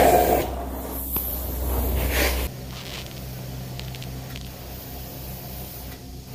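Surging whooshing hiss that swells and fades for about two and a half seconds, then cuts to a steady low machine hum with a slow low pulse, heard while carpet pre-spray is applied through a hose-fed sprayer wand.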